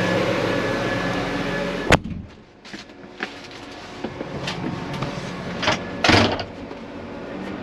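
Steady hum of a tractor cab's engine and fan that ends at a sharp click about two seconds in. After it comes a much quieter stretch with a few scattered clicks and short rustles.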